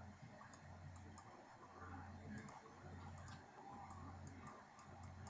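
Near silence: a few faint computer mouse clicks over a low hum.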